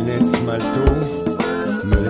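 Music with a steady beat: pitched instruments over drum hits about once a second.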